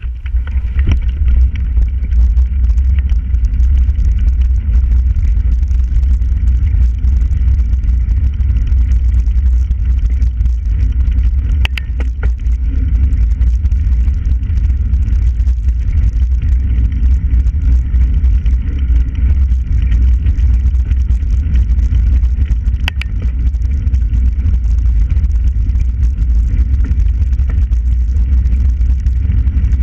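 Loud, steady low rumble of wind buffeting the microphone of a camera moving along a canal towpath, with two sharp clicks about twelve and twenty-three seconds in.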